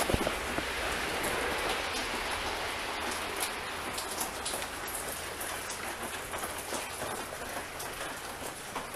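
Footsteps on a gravel and dirt path under a steady hiss, with scattered small clicks.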